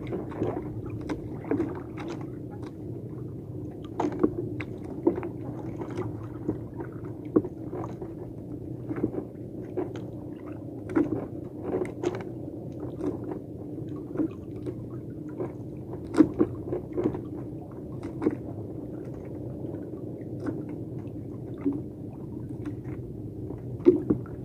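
Small outrigger boat's engine running steadily as a low hum, with irregular short knocks every second or so, the loudest about 16 and 24 seconds in.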